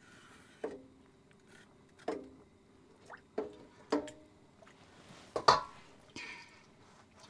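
Hands splashing in a pot of turmeric water while rubbing peeled plantains clean: about six separate splashes and plops, the loudest about five and a half seconds in.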